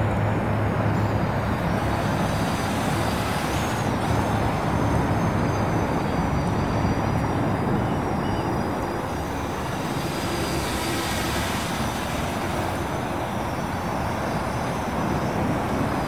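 Parrot Anafi quadcopter in flight, its propellers a faint high whine that wavers in pitch as it manoeuvres, over a steady low rumble.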